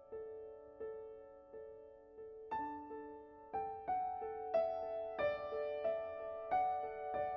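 Background music: soft piano or keyboard notes at an even, gentle pace, filling out with higher chords about two and a half seconds in.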